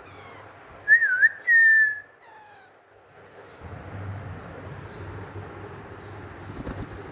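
Pet parakeet whistling: a short wavering whistle about a second in, then a longer, steady, slightly falling whistle, with a few fainter chirps around them.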